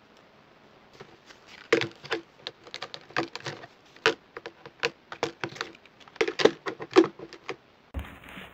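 Clear plastic storage box and plastic die-cutting plates being handled and set down on a cutting mat, clattering in a quick, irregular run of clicks and knocks that stops shortly before the end.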